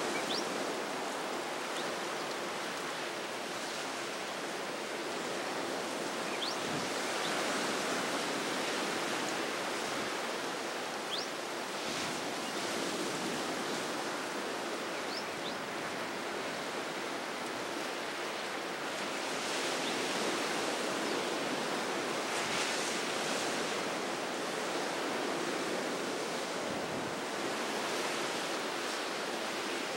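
Steady wash of choppy sea and surf with wind noise, swelling and easing slightly. A few faint, short, high chirps sound over it.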